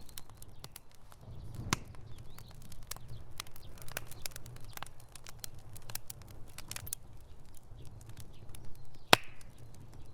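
Wood fire burning in a fireplace: irregular crackles and snaps over a low rumble of flames, with two louder pops, one about two seconds in and one near the end.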